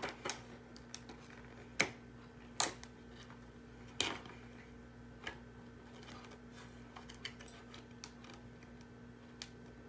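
Scattered clicks and taps of hands working at stiff plastic toy packaging that is hard to open, with the loudest knocks about two and a half and four seconds in, over a faint steady hum.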